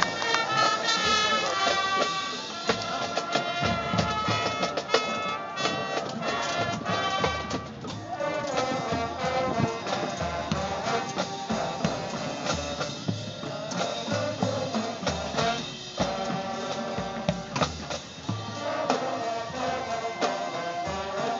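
High school marching band playing a brass arrangement over drums, with held chords and a moving melody line.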